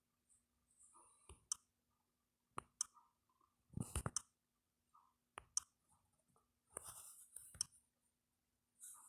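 Faint, scattered clicks and brief soft rustles, about eight in all and loudest about four seconds in, over a low steady hum.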